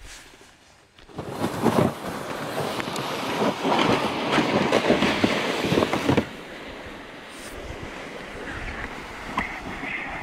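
Wind buffeting the microphone: a loud, gusting rush for about five seconds that drops to a steadier, quieter rush about six seconds in.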